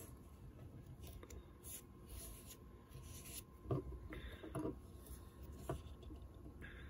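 Faint rubbing and rustling of fingers wrapping a rabbit-fur zonker strip around a hook held in a fly-tying vise, with a few soft taps near the middle, over a faint steady tone.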